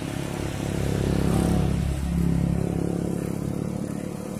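A road vehicle's engine passing close by, swelling to its loudest about a second and a half in and easing off toward the end.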